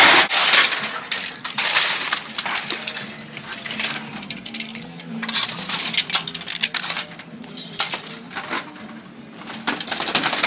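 Rapid, irregular metallic clinks and rattles of small hard objects knocking together, over a faint low hum.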